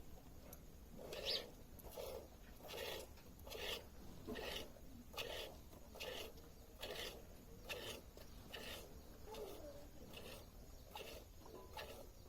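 Buffalo being milked by hand: regular squirts of milk hissing into a pail, about one every 0.8 seconds.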